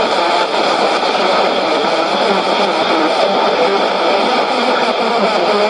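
Shortwave broadcast through a Sony portable receiver's speaker, tuned in AM to a station transmitting with FM modulation: a steady, dense rough noise with no clear speech or music, typical of an FM signal heard through an AM detector.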